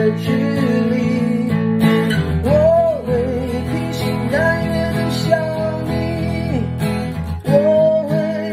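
A man singing in Mandarin while strumming an acoustic guitar, with long held sung notes over steady chords.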